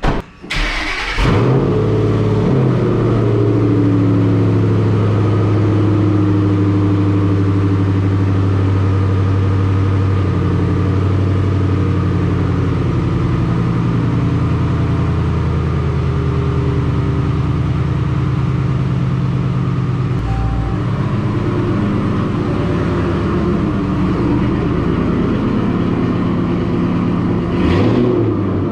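Ford Mustang GT's 4.6-litre three-valve V8 starting about a second in and then idling loudly through long-tube headers, high-flow cats and muffler deletes. The idle steps down a little about ten seconds in and wavers later as the car pulls away slowly.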